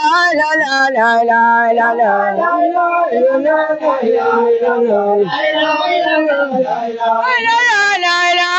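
A solo man's voice chanting a melodic recitation into a microphone, with long held notes that slide and waver between syllables.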